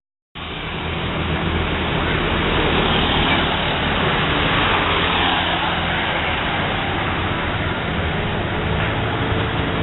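Buses driving past on the road: a steady rumble of engines and tyre noise, starting after a split-second of silence.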